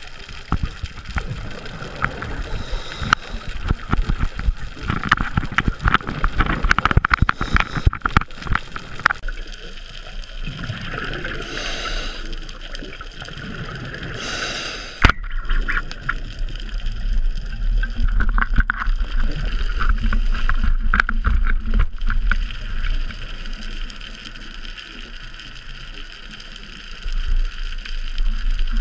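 Underwater camera audio: water noise and crackling against the housing, with several hissing bursts of exhaled bubbles from a scuba regulator. A low, steady rumble comes in about a third of the way through.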